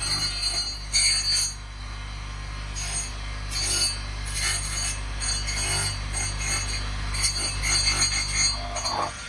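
Electric bench motor spinning a sanding disc, humming steadily while carved wood is pressed against the disc in short, irregular rasping bursts.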